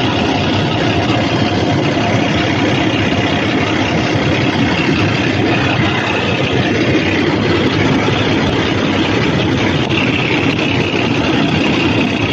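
Cummins ISX heavy-duty diesel engine idling steadily.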